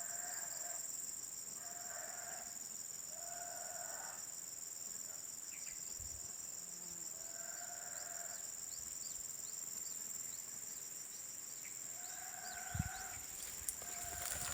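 Steady high-pitched insect chorus, over which an unidentified animal call repeats: a short, even, hoot-like tone, about five times, a second or two apart at first, then silent for several seconds before returning near the end. A soft knock near the end.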